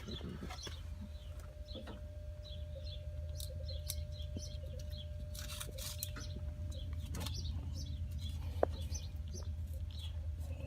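Birds chirping and calling in short bursts over a steady low hum, with a single sharp click about eight and a half seconds in.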